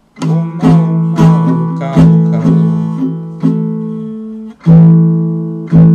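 Sound-sation baritone ukulele strummed in chords, about two strums a second with a short break a little after four seconds in, the four strings ringing between strokes.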